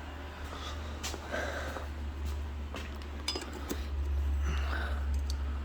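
Metal hand tools clinking and clattering as someone rummages through a bucket of tools, a few sharp knocks among them, over a steady low hum.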